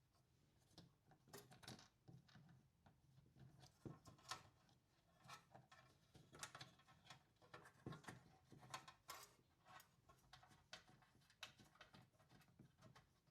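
Faint, irregular small clicks and taps of parts and tools being handled, a few a second, over a faint low hum.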